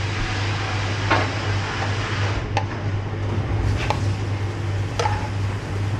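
A metal ladle stirring curry sauce in a steel pan and knocking against the pan and a metal bowl, about four short clinks. These sit over a steady low hum and hiss of kitchen noise.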